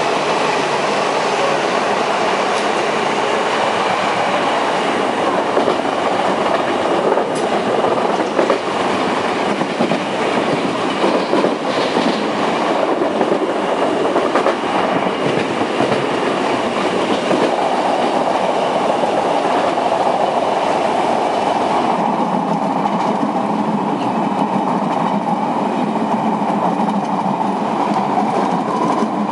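Odakyu 1000 series electric train running at speed, heard from inside a carriage: steady wheel-on-rail running noise with occasional clicks, the tone shifting about 22 seconds in.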